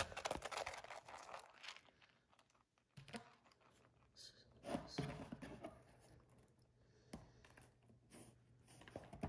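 Faint rustling and handling noises from a small coated-canvas zip pouch being held and turned in the hands. The rustling is strongest in the first couple of seconds, followed by a few scattered soft crinkles and taps.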